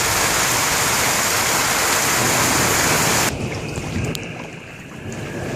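Heavy rain pouring down in a flash-flood downpour, a loud steady hiss that cuts off abruptly a little over three seconds in, leaving a quieter low rush.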